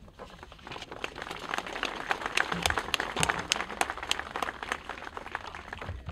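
Audience applauding, building up over the first second or so and tapering off near the end.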